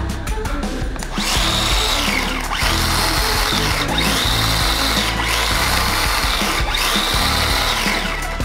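Small brushed DC motor of a homemade RC car, run from the remote with the wheels spinning free in the air. About five spin-ups, each a whine that rises in pitch, holds, then falls as the motor coasts down. Background music plays underneath.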